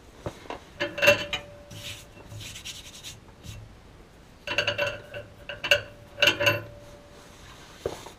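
Loose small metal hardware clinking and rattling as it is handled: a cluster of clinks about a second in, then a quick run of clinks around the middle, some leaving a short metallic ring.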